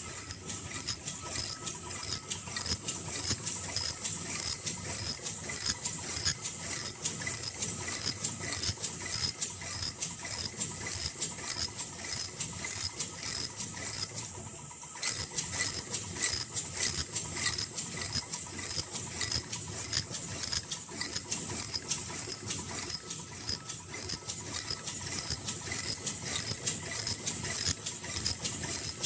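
Automatic KF94 fish-shaped mask-making machine running at production speed: a steady, fast rhythm of mechanical clicks and rattles over a constant high hiss.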